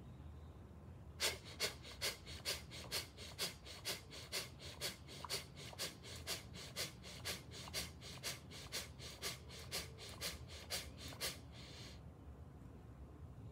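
An elderly man's rapid, forceful rhythmic pranayama breathing (bhastrika/kapalabhati breath infusion), about two to three sharp breaths a second. It starts about a second in and stops after about eleven seconds.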